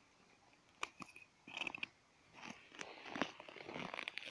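Faint footsteps crunching on frozen snow, irregular crunches with a few sharp clicks, heavier in the second half.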